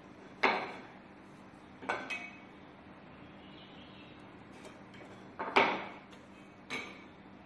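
A try square with a steel blade and a wooden block being set down, turned and knocked against a wooden workbench while a line is marked all round the block: about six sharp knocks and clinks, the loudest a double knock about five and a half seconds in.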